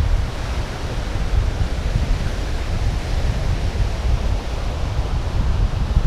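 Strong wind buffeting the camera's built-in microphone with a low, fluttering rumble, over the steady wash of surf.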